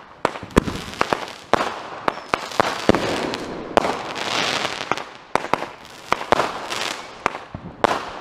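Consumer fireworks going off: a rapid, irregular series of sharp bangs from several cakes fired together, with hissing and crackling between the reports.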